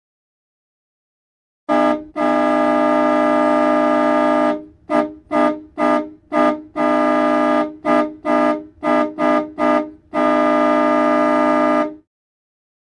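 Old truck's horn sounding in a pattern of long blasts and quick toots. Nearly two seconds in, a short toot comes, then a blast of about two seconds, several quick toots, a shorter blast, more quick toots, and a final blast of about two seconds.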